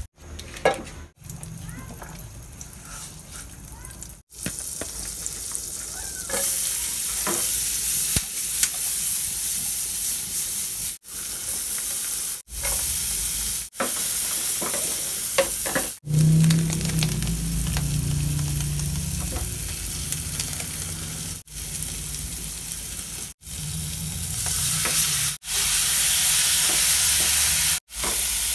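Sliced onions sizzling and frying in an oiled nonstick frying pan while a wooden spatula stirs and scrapes them. The sizzle is quieter for the first four seconds, then louder, and drops out for a moment several times.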